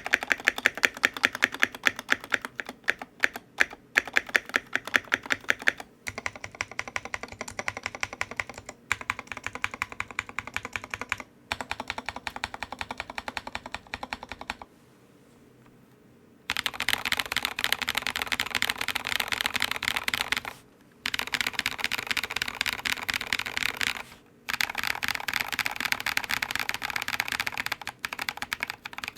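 Typing on a mechanical keyboard with lubed Holy Panda tactile switches and MT3 keycaps: fast, continuous keystrokes. The first few seconds have sharper, more spaced strokes. There is a pause of about two seconds past the middle, and short breaks near the end.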